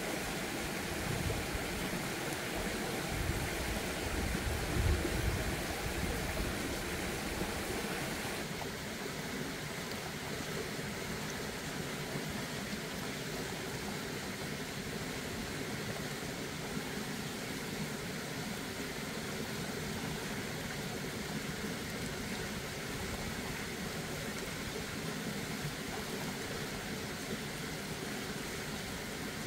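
Steady rushing outdoor background noise, like running water or wind, with some low rumbling handling noise in the first several seconds; the noise shifts slightly about eight seconds in.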